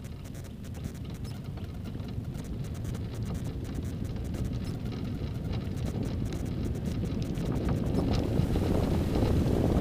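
Wind rushing over the microphone and tyre rumble of an engineless gravity race car coasting downhill, growing steadily louder as it gathers speed.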